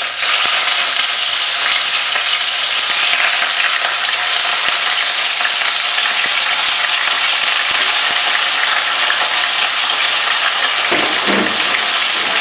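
Bone-in chicken pieces sizzling loudly as they shallow fry in hot oil in a pan, a steady hiss throughout.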